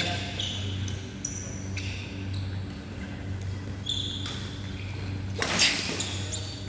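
Sneakers squeaking in short chirps on an indoor badminton court floor as players shift their feet, over a steady low hum in the hall. About five and a half seconds in, a sharp racket hit on the shuttlecock rings through the hall, the loudest sound.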